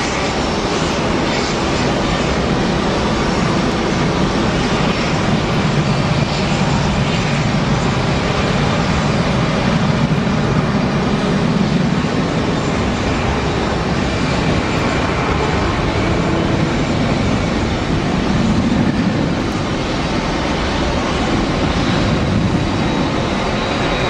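Jet engine noise from a four-engined Boeing 747 landing: a steady, loud rushing rumble that swells in the low end twice as it passes.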